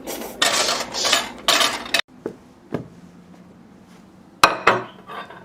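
Dishes and cutlery clattering and scraping for about two seconds, stopping abruptly, then a few separate clinks.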